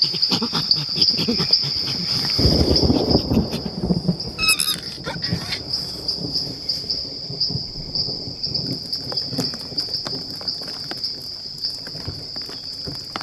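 Rainforest insect ambience: a steady, high-pitched, cricket-like trilling. A low rumbling noise comes in about two to four seconds in, and a short burst of chirps follows at about four and a half seconds.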